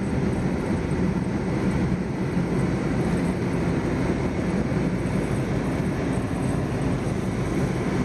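Snowplow truck driving on a snow-covered road, heard from inside the cab: a steady, even rumble of engine and road noise.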